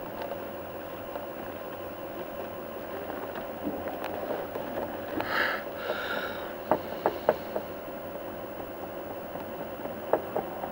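Steady drone and rumble inside a moving vehicle's crowded rear compartment, with a constant hum. A short rustle a little past halfway, then three sharp clicks close together, and one more near the end.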